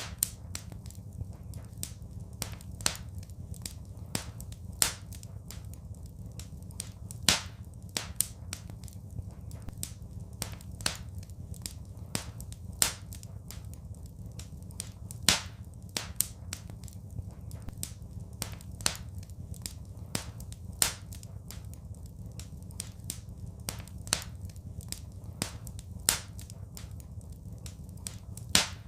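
Wood fire crackling in a fireplace: sharp pops and snaps every second or two, with many fainter crackles between, over a steady low rumble of the flames.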